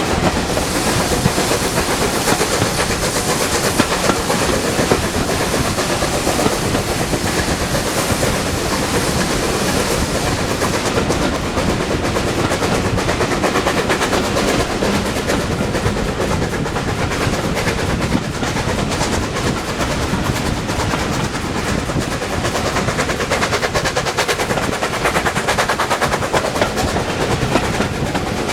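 A train running on the rails, with a steady loud rattle and clatter made of rapid clicks.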